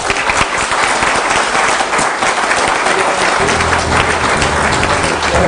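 Audience applauding: loud, dense clapping that starts suddenly and holds steady. Music comes in underneath about halfway through.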